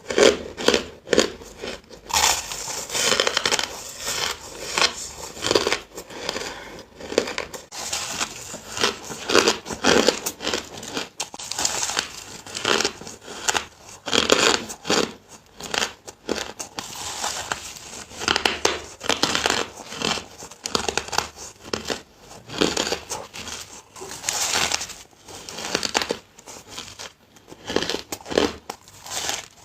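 Close-up chewing of hard crushed ice: a continuous run of crisp, crackly crunches, bite after bite.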